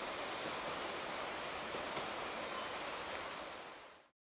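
Steady rushing noise of running water, fading out about four seconds in.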